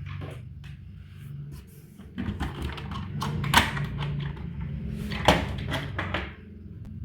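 Handling noises: a run of knocks and clicks over a low steady hum, with two sharper, louder knocks, one about halfway through and one later.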